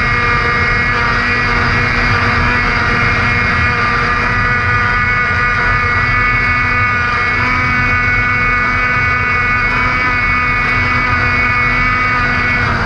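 Snowmobile running at about 75 mph. The engine holds one steady high note throughout, over constant low wind noise.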